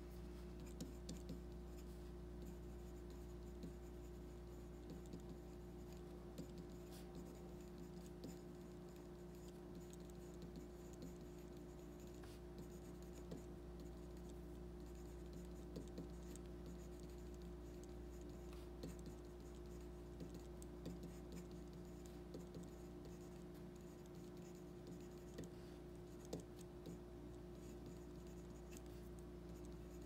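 Everyman Grafton mechanical pencil writing on paper: faint lead scratching with small scattered ticks as letters are formed, over a steady low hum.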